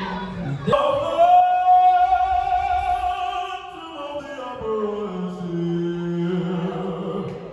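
A singer performing live, holding a long high note that glides down through a run into a long low note.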